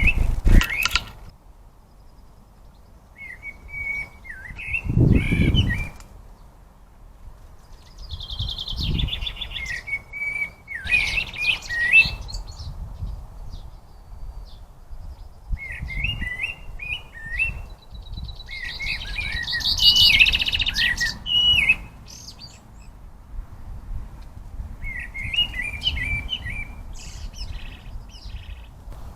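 Small garden birds singing and calling: short chirping phrases repeated every few seconds, with two buzzy, rattling stretches about a third and two thirds of the way through. A few low rustling thumps come near the start and around the fifth and ninth seconds.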